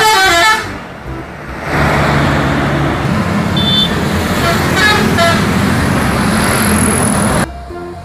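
Traffic noise of coach buses driving past: engine and tyre rumble with a steady low hum, and a few short horn toots. It cuts off suddenly near the end.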